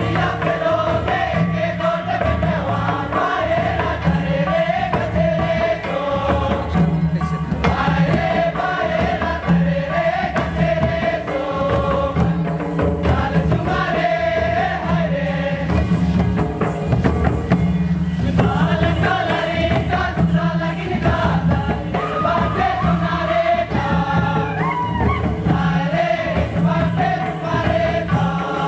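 A group of voices singing a Karma folk song in unison with a steady beat from hand-played barrel drums.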